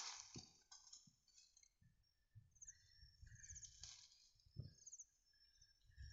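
Very quiet outdoor ambience with small birds chirping in short, rapid high trills several times and a thin held high note, plus a few soft knocks in the first second.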